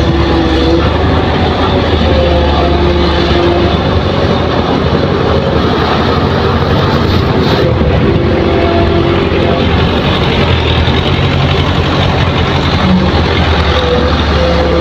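Hitachi hydraulic excavator working a loading cycle: its diesel engine runs steadily and loud, with held tones that shift in pitch as the machine swings a bucket of fill over to a dump truck and back to the dig face.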